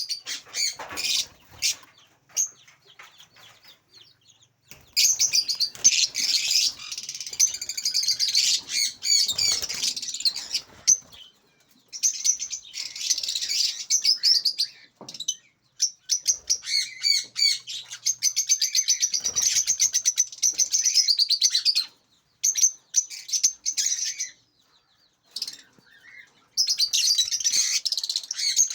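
A colony of caged African lovebirds chattering: dense, rapid, shrill chirping in long bouts, with brief lulls early on and again a little before the end.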